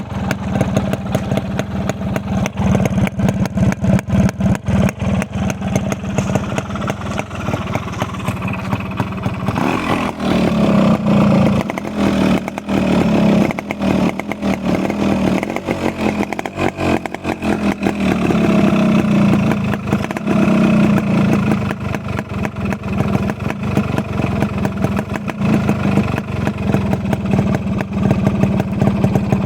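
Yamaha RX100's 98 cc two-stroke single-cylinder engine running with a rapid, even exhaust beat, revved up twice: about ten seconds in and again near twenty seconds, settling back to idle between.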